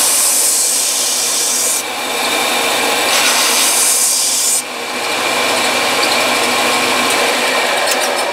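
Belt sander running with a gunstock's recoil pad pressed against the belt: a loud, steady abrasive grinding over the motor's hum. The grinding dips briefly about two and four and a half seconds in as the pressure on the belt changes.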